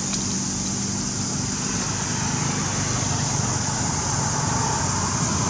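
Steady outdoor background noise: a low rumble under a constant high hiss, with no distinct event standing out.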